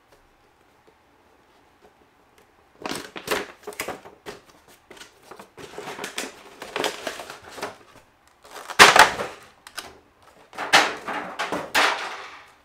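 Funko Pop window box being opened: the cardboard flap and clear plastic insert crinkle, crackle and scrape in irregular bursts as the figure is pulled out. The sounds start about three seconds in and are loudest around the middle.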